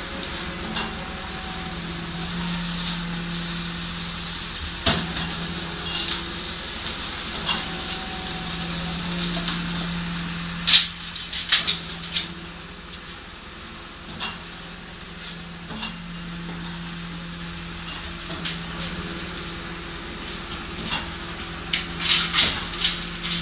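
Rear-loading garbage truck running with a steady hum that swells in stretches, while metal wire roll cages clank and rattle and bags of rubbish rustle as they are tipped into the hopper. The clanks come in scattered knocks, with a quick cluster about halfway and several more near the end.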